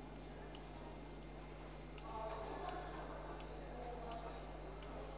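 Quiet background of a steady low hum with scattered faint ticks, joined about two seconds in by a faint murmur.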